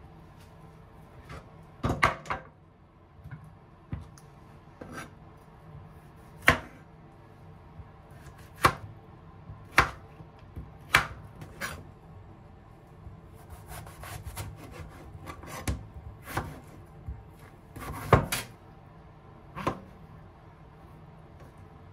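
Kitchen knife slicing zucchini and king oyster mushrooms, the blade knocking on a plastic cutting board with each cut. The cuts are single and unevenly spaced, about a dozen sharp knocks in all.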